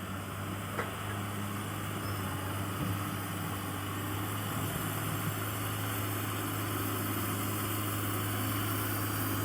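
Diesel engine of heavy road-building machinery running steadily while the granular sub-base layer is graded, a low hum growing slightly louder.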